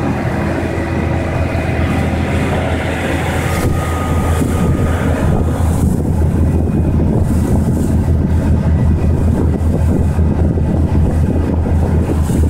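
Boat engine running steadily under way with a deep, fast throb that grows a little louder about four seconds in, with wind buffeting the microphone.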